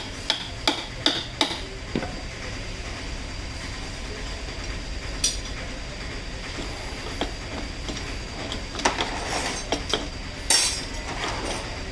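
Scattered sharp metallic clinks and clanks of hand tools on metal parts during work on a jeep's wheel and brake drum. A quick run of about five comes at the start, a single one about five seconds in, and a cluster late on, the loudest near the end, over a steady low hum.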